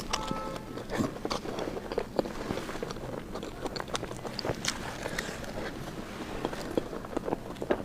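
Close-miked chewing and biting of soft food: wet mouth smacks and small clicks, irregular and continuous.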